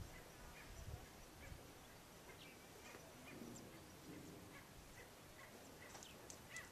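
Faint outdoor ambience with scattered short bird chirps and calls, and a soft low bump about a second in.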